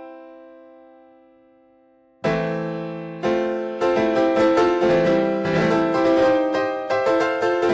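Background piano music: a chord dying away, then a fresh chord a little over two seconds in and quicker notes from about four seconds on.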